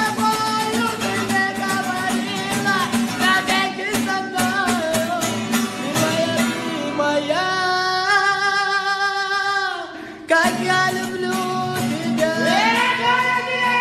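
A voice singing a song over instrumental accompaniment, holding one long note about 7.5 seconds in, breaking off briefly, then sliding up into another held note near the end.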